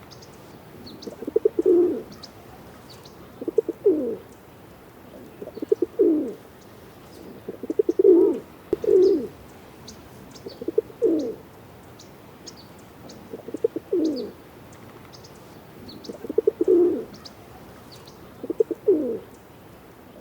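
Pigeon cooing over and over, about one coo every two seconds, each starting with a quick fluttering pulse and sliding down in pitch. Faint, brief high chirps of small birds sound in the background.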